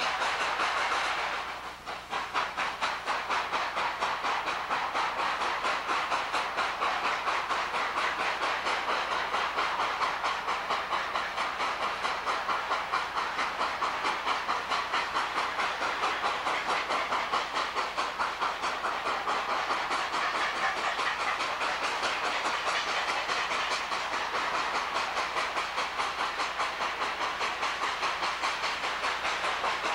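Chesapeake & Ohio 614, a 4-8-4 steam locomotive, working hard, its exhaust chuffing in a fast, steady rhythm with a hiss of steam. There is a brief dip in level about two seconds in.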